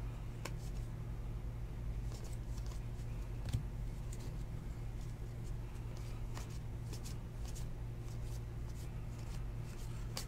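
Stack of baseball trading cards being flipped through by hand, the cards sliding off one another with scattered light flicks and clicks, over a steady low hum.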